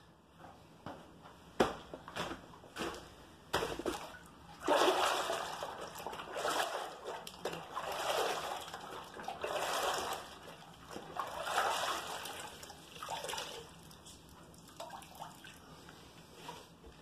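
A few knocks and clatters, then water splashing and sloshing in irregular bursts for several seconds, fading out near the end.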